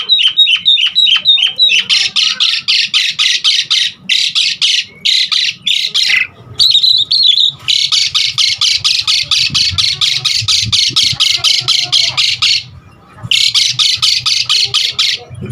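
Javan pied starling (jalak suren) singing loudly. It opens with a quick series of about six falling whistles, then gives long runs of rapid harsh chattering notes, about five a second, broken by short pauses, with a brief warbled phrase about seven seconds in.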